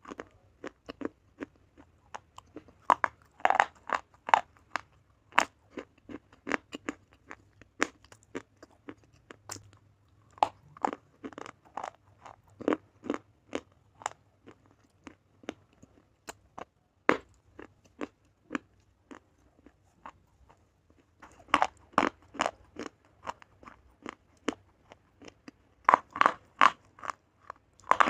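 A person biting and chewing a slate bar: a run of sharp, dry crunches in irregular clusters, with short pauses between bites.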